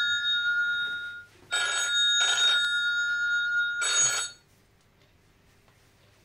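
Mobile phone ringtone imitating an old telephone bell: a held tone broken by short rings, ending abruptly about four seconds in.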